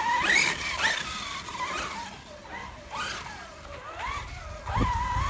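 Redcat Kaiju 1/8-scale 6S monster truck's brushless electric motor whining as it is throttled up and back in repeated bursts, each a rising then falling whine. A low rumble of tyres or wind comes in near the end.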